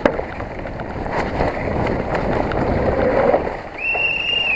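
Specialized Enduro 29 mountain bike descending a rough trail: a steady rush of wind and tyre noise with scattered knocks and rattles from the bike, and a short, steady high squeal near the end.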